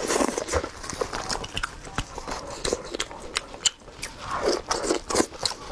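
Close-miked eating sounds of steamed chicken: wet chewing, lip smacks and sucking, with many sharp clicks.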